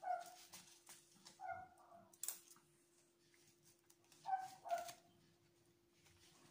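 A dog whimpering: four short, high whines, one at the start, one about a second and a half in, and two close together near the middle, over a faint steady hum.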